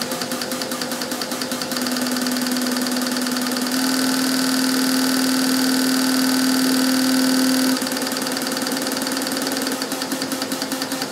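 Test bench relay firing a set of fuel injectors in a rapid, even train of clicks. Under it runs a steady hum that grows louder about two seconds in and drops back a few seconds before the end.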